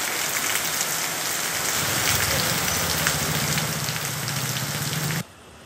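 Heavy rain falling on a street, a steady hiss with fine pattering drops. A low steady hum joins about two seconds in. The sound cuts off suddenly about five seconds in.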